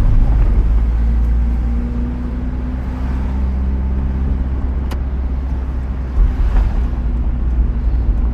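Mk2 Mazda MX-5's engine and road noise heard from inside the cabin while driving, a steady low drone that shifts gently in pitch, with one sharp click about five seconds in. The car has a freshly replaced clutch and throw-out bearing.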